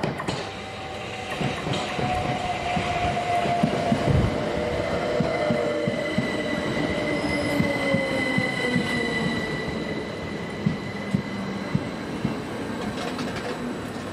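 Southern Class 377 Electrostar electric multiple unit running in along the platform and slowing. Its motor whine falls in pitch, the wheels click over rail joints and pointwork, and a thin high squeal holds through the middle of the passage.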